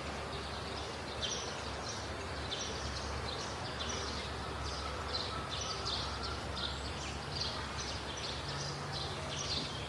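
Birds chirping over steady outdoor background noise: short high chirps repeating a few times a second.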